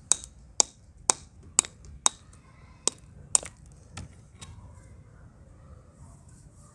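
A shard of fired red clay water pot struck with a steel tool against a hand-held stone, cracking and crumbling: seven sharp cracks about two a second, then a duller knock about four seconds in.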